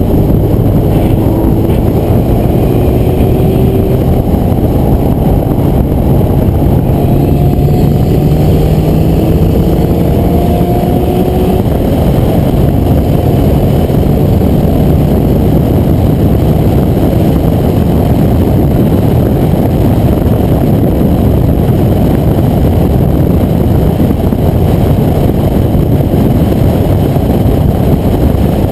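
Porsche 944 Turbo's turbocharged 2.5-litre four-cylinder engine accelerating hard. Its pitch rises near the start and again from about 8 to 12 seconds in, then it runs on at speed under a loud, steady rush of noise.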